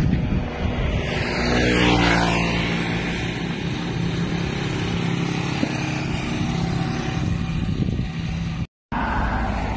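Road traffic: motor vehicle engines running close by, one passing about a second in with its pitch falling, then a steady engine hum. The sound cuts out for a moment near the end.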